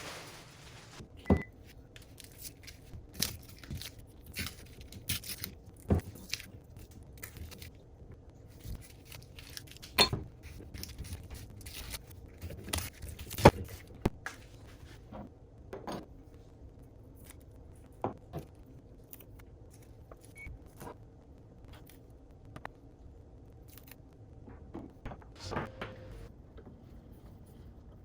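Irregular sharp clicks, taps and light scraping of hand work on metal vise parts, with a dozen or so louder knocks spread unevenly through.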